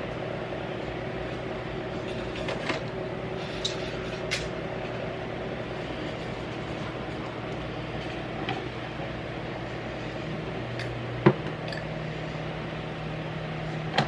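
A steady machine hum that shifts to a higher pitch a little after the middle, with a few light clicks and knocks and one sharp click just after the change.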